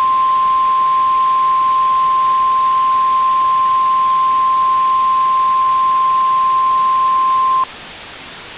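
Emergency Alert System attention tone: one loud, steady, unbroken beep held for about eight seconds, cutting off suddenly near the end and leaving a steady hiss. It signals a required monthly test of the alert system broadcast over TV.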